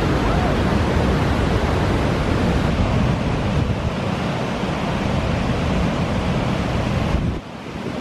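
Steady rushing of a waterfall over granite ledges, with wind buffeting the microphone. The low buffeting drops away suddenly near the end.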